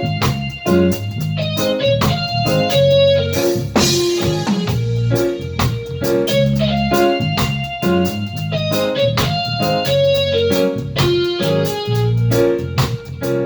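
Live reggae band playing an instrumental passage, with a steady drum beat, bass line, and organ chords on top.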